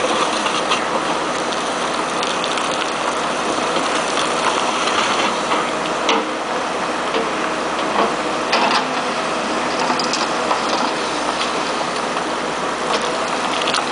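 New Holland backhoe loader working its bucket in rocky soil: the diesel engine and hydraulics run steadily under a constant clatter, with a few sharp knocks about six seconds in, around eight seconds and near the end.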